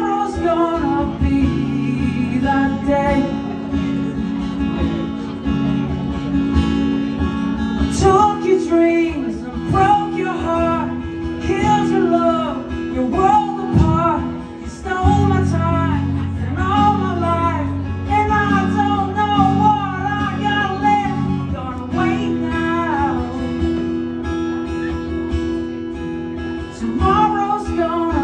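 Acoustic guitar strummed through an instrumental stretch of a live song, with a wavering melody line over the chords from about eight seconds in until about twenty-two seconds in.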